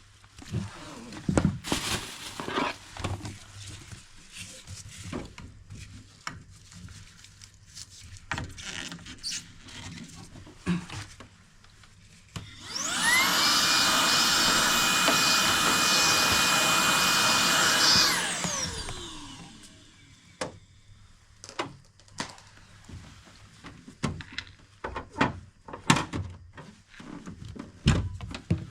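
A small high-speed electric blower motor spins up quickly, runs steadily for about five seconds with a high whine, then winds down. Scattered clicks and knocks of parts and tools being handled come before and after it.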